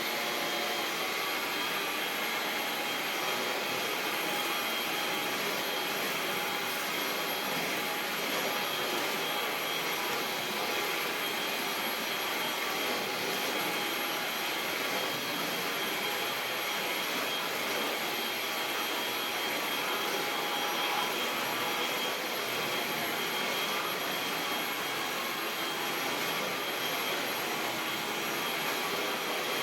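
Eufy HomeVac S11 Reach cordless stick vacuum running steadily at medium power as its power head is pushed over a rug: an even rush of air with a faint high whine.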